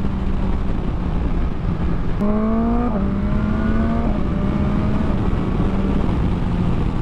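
BMW S1000XR's inline four-cylinder engine running at road speed under heavy wind rush. About two seconds in the engine pitch jumps up and climbs as the throttle opens, dips sharply just before three seconds, and settles back to a steady tone about four seconds in.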